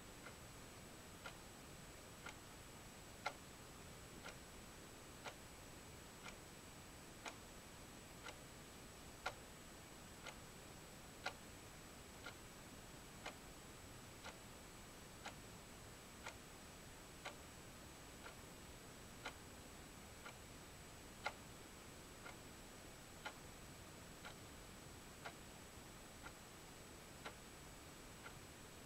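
Faint, even ticking, one tick about every second, some ticks a little louder than others, over a thin steady high-pitched whine.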